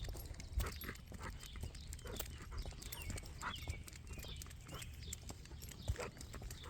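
Footsteps and scuffs of a man and his dog walking up a hill path, irregular short steps over a low rumble of wind and handling on the microphone.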